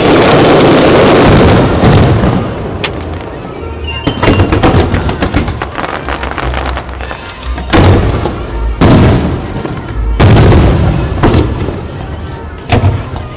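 Aerial fireworks bursting: a string of heavy booms, one every second or two, each with a trail of crackling, over loud music.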